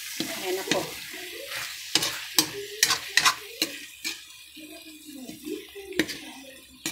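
Ampalaya and pork being stirred in a frying pan with a utensil, over a light sizzle. Sharp clinks of the utensil against the pan come in a quick run through the first four seconds, then twice more near the end.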